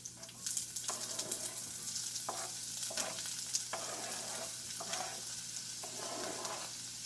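Diced onion hitting hot olive oil in a frying pan and sizzling steadily from about half a second in, with a series of short scrapes as a knife pushes the rest of the onion off the cutting board.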